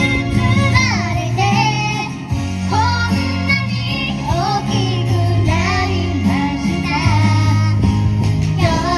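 A young girl singing a pop song live, her sung melody carried over instrumental accompaniment with a steady bass line.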